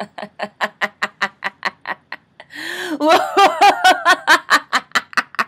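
A woman laughing hard without words: a long run of quick, breathy laugh pulses, about five a second. About halfway through it swells into a louder stretch of wavering voiced laughter, then falls back to the quick pulses.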